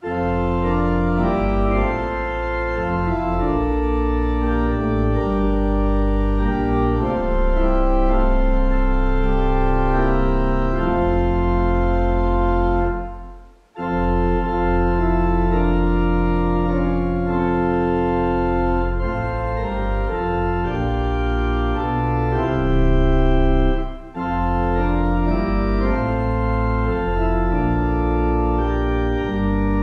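Organ playing slow, held chords over deep bass notes, in phrases that break off briefly twice, about halfway through and again later.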